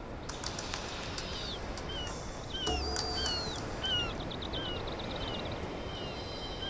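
Birds calling: from about two seconds in, a string of short, high, downward-sliding chirps comes roughly every two-thirds of a second. There are a couple of longer falling whistles and a quick run of ticks around four seconds in, over steady background noise.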